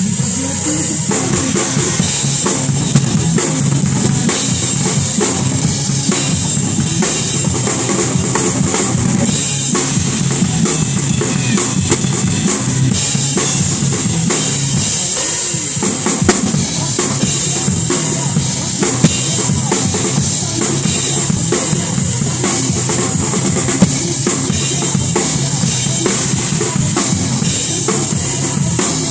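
Clear acrylic drum kit played fast and hard throughout: steady kick drum and snare with rimshots, under a constant wash of crash and china cymbals. Sharper accent hits stand out about 3, 19 and 24 seconds in.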